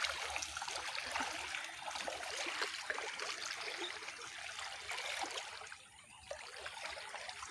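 Shallow muddy water sloshing and trickling as two boys wade through it and feel in it with their hands, with a patter of small splashes; it eases off briefly about six seconds in.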